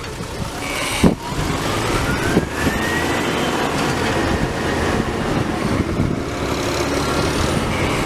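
Same Diamond 265 tractor's Deutz 1013 diesel engine running steadily while pulling a plough, with a sharp knock about a second in and a faint whine rising in pitch over the next two seconds.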